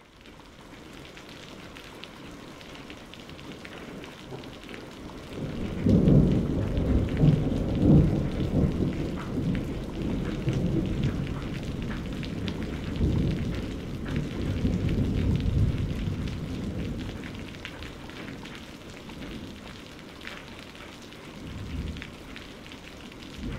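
Gravity-feed airbrush spraying paint: a rushing of air with a low rumble, faint at first, strongest from about six seconds in and easing off after about sixteen.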